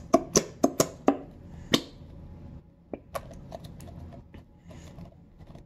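Plastic squeeze bottle of white school glue being squeezed into a glass bowl, the glue squelching out with about six sharp sputtering pops in the first two seconds, then fainter ticks as the flow tails off.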